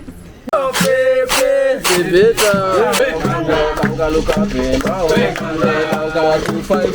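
Music with a man singing, starting about half a second in.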